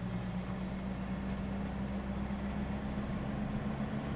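Car engine and road noise heard from inside the cabin while driving: a steady low drone that holds even throughout.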